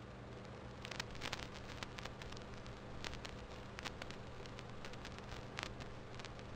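Faint crackle of irregular clicks and pops over a low, steady hum: old-film surface noise. The pops come thickest about a second in.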